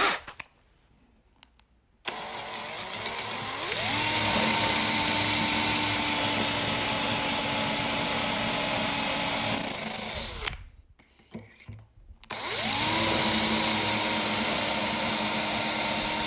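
Cordless drill boring through the wooden head block of a guitar body, its bit guided by a stainless steel bushing in an aluminium drilling jig. Two drilling runs follow a short silence at the start: each spins up to a steady high speed, and the first runs about six seconds before winding down, with a pause of about two seconds between them.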